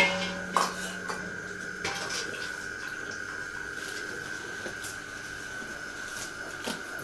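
A few light metallic clinks of steel dishes in the first two seconds, over one steady, high, unbroken insect trill.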